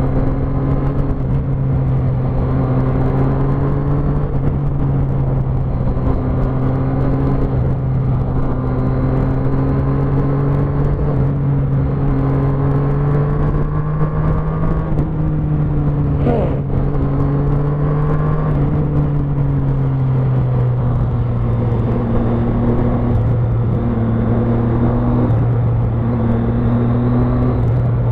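Motorcycle engine running steadily at highway cruising speed, with wind and wet-road tyre noise. A brief click about sixteen seconds in.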